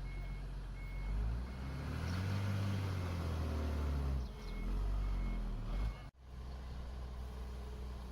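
Heavy construction machine diesel engine working, revving up twice under load, with a reversing alarm beeping steadily over it near the start and again partway through. The sound cuts out abruptly just after six seconds, then the engine carries on at a steady idle.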